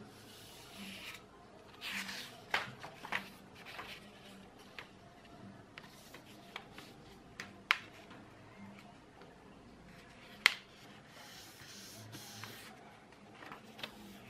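A sheet of A4 paper being folded and smoothed flat on a table by hand: soft rustling and sliding of the paper, with a few short sharp clicks, the loudest about ten seconds in.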